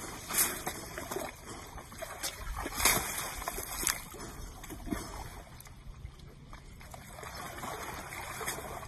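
Wet mud splashing and sloshing as a young Asian elephant rolls and wallows in a mud pool, in irregular slaps and splashes, the loudest about half a second and about three seconds in.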